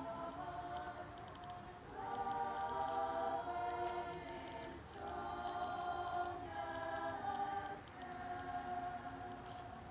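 Slow ceremonial music of long held chords, each chord sustained for a second or more before moving to the next.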